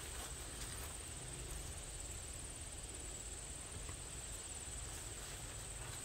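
Insects in the field making a steady, high, finely pulsing trill, over a low steady rumble.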